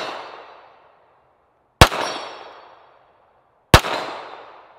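SIG Sauer P320 X5 Legion 9mm pistol fired twice, about two seconds apart, each shot a sharp crack followed by about a second of echo dying away. The echo of the shot just before is still fading at the start.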